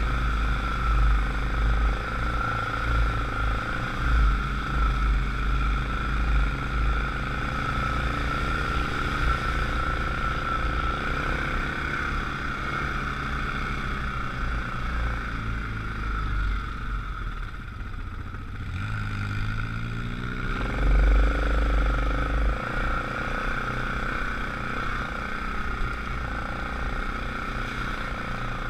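ATV engine running steadily along a rough trail with a constant whine. About two-thirds of the way through it eases off briefly, then revs back up.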